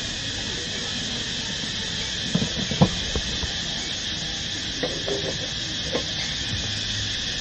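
Steady chorus of insects with a high, even hiss-like buzz, broken by a few short soft knocks about two and a half seconds in and again around five to six seconds in.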